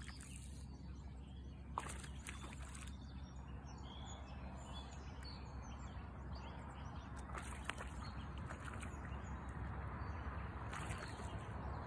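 Birds chirping over a steady low outdoor rumble, with a few brief hissing bursts.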